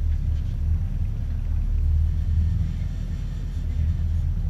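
Honda Civic EK9 Type R's four-cylinder race engine idling steadily, a low rumble heard inside the stripped, roll-caged cabin.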